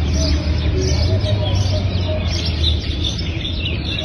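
Small birds chirping repeatedly over a steady low hum.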